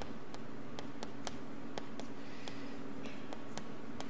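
Chalk writing on a blackboard: a string of light clicks and taps as the chalk strikes the board, a few each second, over a steady low hum.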